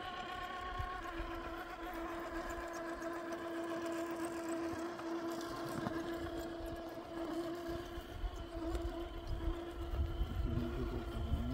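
Electric motor and gearbox of a scale RC crawler truck giving a steady whine as it crawls slowly over rocks and tree roots.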